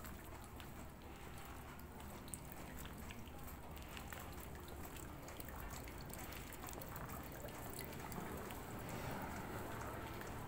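Faint trickling of water in a narrow stone gutter beside the street, with scattered light clicks and drips over a low steady hum of outdoor background.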